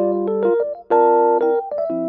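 Background music: a piano-like keyboard playing a light melody over changing chords.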